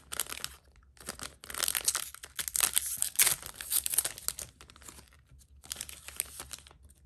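Foil trading-card booster pack being torn open across its top and crinkled in the hands: bursts of tearing and crinkling, with a short pause and one last flurry near the end.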